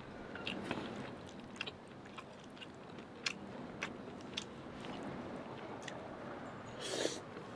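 A person chewing food close to the microphone, with scattered wet mouth clicks and smacks. Near the end comes one louder, noisier sound as a big mouthful of noodles is slurped in.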